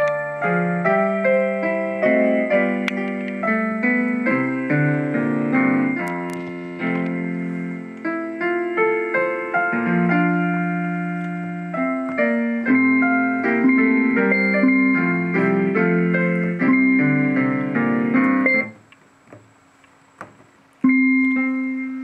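Piano-voiced MIDI tune playing from the OLED pushbutton demo box's built-in speaker: a melody over chords. It stops about 19 s in, goes quiet for about two seconds, and notes start again near the end.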